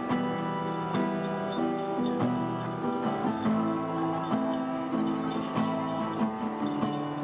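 Acoustic guitar strummed, playing a song's introduction with a chord change about every second before the singing comes in.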